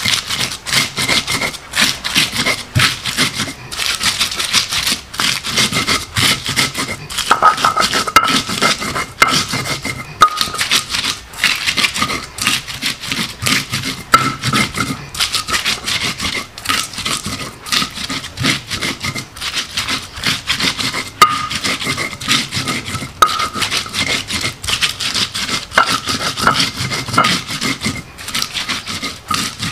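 Spices being ground by hand on a stone grinder, a continuous gritty scraping of stone on stone made up of many rapid back-and-forth strokes.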